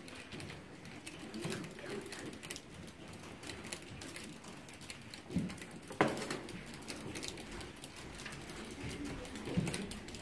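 Soroban (Japanese abacus) beads flicked rapidly by fingers, a dense run of light clicks as calculations are worked, with one louder knock about six seconds in.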